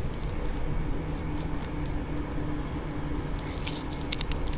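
Fillet knife slicing cobia flesh along the backbone: wet squishing cuts, with a cluster of quick sharp clicks near the end, over a steady low rumble.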